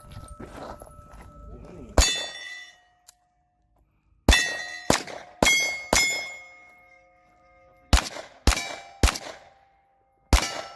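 Nine pistol shots fired at steel plate targets, each hit ringing out with a metallic clang that hangs on briefly. One shot about two seconds in, then a quick run of four, a run of three, and a last shot near the end.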